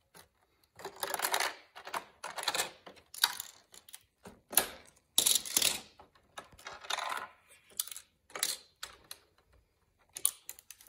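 Lego bricks being handled and pulled apart: irregular clusters of light plastic clicks, rattles and short scrapes as a cylinder of a Lego engine model is taken apart.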